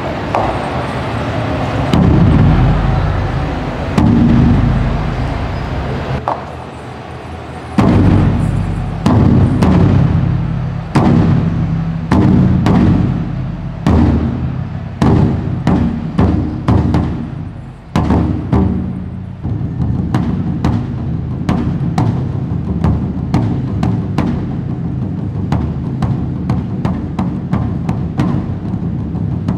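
Japanese taiko drums beaten with wooden sticks: heavy, booming strikes on the big drum, a couple of seconds apart at first, then quicker runs of strokes. In the second half it settles into a fast, steady pattern of sharp hits.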